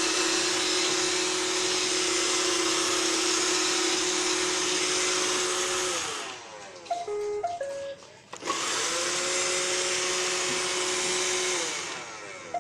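iRobot Roomba 620 robot vacuum running with a steady whir, winding down about six seconds in and playing a short beeping tune, then starting up again a second later and winding down once more near the end. The stops and tune mark a finished cleaning cycle.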